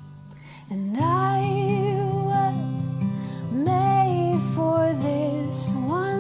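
Woman singing a slow, tender worship song over acoustic guitar. A chord rings alone for about the first second, then her voice comes in with three phrases of long, wavering held notes.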